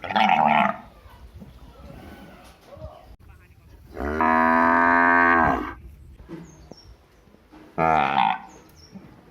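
Cattle mooing: a short call at the start, one long drawn-out moo about four seconds in, and another short call near the end.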